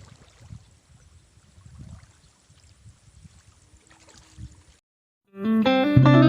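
Faint, irregular sloshing of muddy water. It cuts to a moment of silence, then loud plucked guitar music starts about five and a half seconds in.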